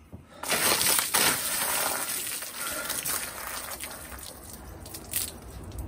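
A large dousing of water crashing down over a seated person, starting suddenly about half a second in and splashing onto the wetsuit, a newspaper and the paving. The splash is loudest for about a second, then trails off into splattering and dripping for a few seconds, with a short crackle near the end.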